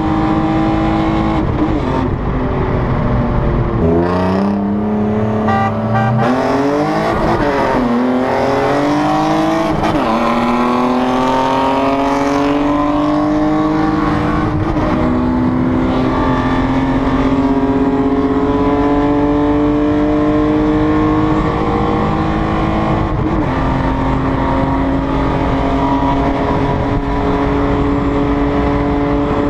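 BMW E36 M3 straight-six with an aftermarket intake and X-pipe, heard from inside the cabin, pulling hard through the gears. The revs drop sharply about four seconds in, then climb repeatedly, with further gear changes near the middle and about three quarters of the way through.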